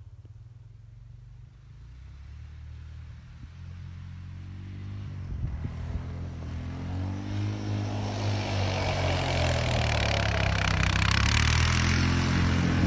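ATV engine approaching across snow, growing steadily louder, its pitch rising and falling as the rider works the throttle.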